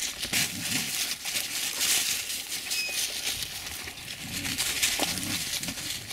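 Dogs snuffling and panting close to the microphone, with crackling and rustling of dry grass and leaves under paws and feet.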